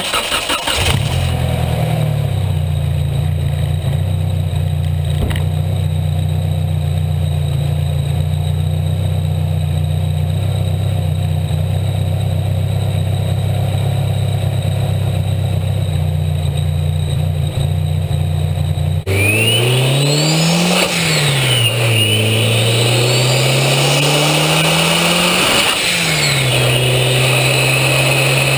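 Turbocharged 4G63T four-cylinder heard at the inlet of its big turbo, idling steadily, then revved about two-thirds of the way in. Each rev rises and falls twice, and a high turbo whistle sweeps up and down with it before settling back to a steady idle near the end.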